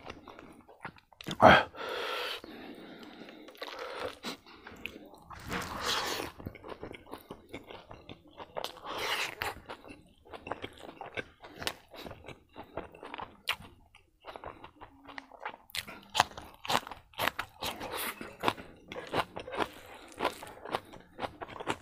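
Close-miked eating of a hand-fed mouthful of rice, kidney beans and meat: chewing with many short wet clicks, a sharp crunch about a second and a half in, and a drawn-in slurp around six seconds in as a coriander sprig is sucked into the mouth.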